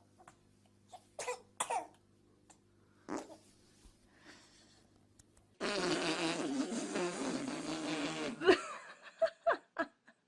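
A long, rippling fart lasting about three seconds, starting a little past halfway through, with a few short sounds after it.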